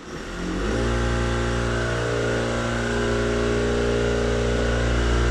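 Shop air compressor motor starting up about half a second in, quickly coming up to speed and then running steadily, pumping air into the air-ride reserve tank.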